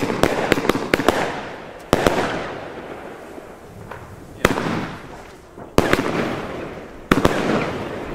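Compound firework battery firing: a quick string of sharp bangs in the first second, then single loud bursts about every one and a half seconds. Each burst is followed by a fading crackle lasting over a second.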